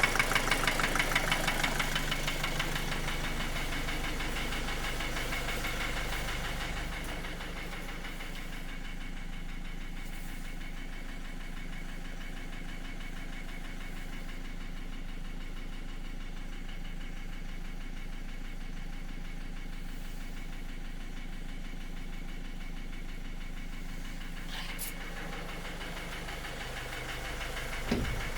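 2010 Astra J 1.7 CDTI four-cylinder turbodiesel idling with a rhythmic engine knock. The knock is loud in the first few seconds and settles to a quieter, steady run from about seven seconds in. The owner says the knock survives checked bearings and new injectors. A short click and a sharp thump come near the end.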